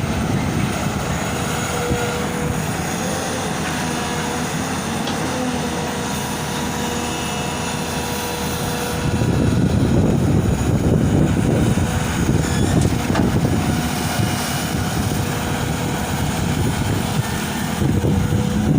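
Diesel engine of a long-reach TATA excavator running steadily, growing louder and rougher for a few seconds about halfway through.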